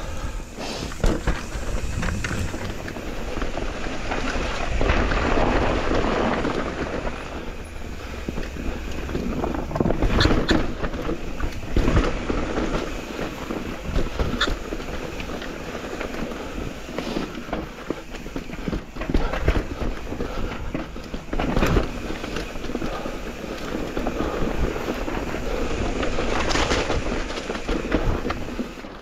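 Mountain e-bike riding over a rough trail: a continuous rumble of tyres and rattling bike, with sharp knocks every few seconds as it hits bumps.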